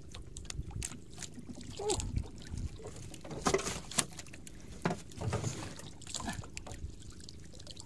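Water sloshing against the hull of a small outrigger boat, with scattered sharp clicks and rattles as a fishing line and jig are handled and a freshly caught ruby snapper is unhooked.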